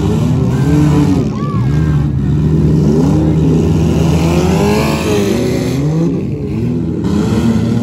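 Several demolition-derby compact cars' engines running and revving together, their pitches rising and falling. About four to five seconds in, one engine revs up and back down loudly.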